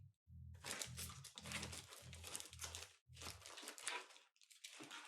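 Crinkling and rustling as a planner is worked into its new cover, in several short stretches with brief pauses. Under it, a bass guitar plays low notes in another room, ending about three and a half seconds in.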